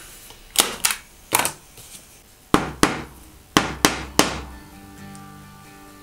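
A hand staple gun and a claw hammer driving and tapping staples through ribbon into a board: about nine sharp strikes, mostly in quick pairs, over background music.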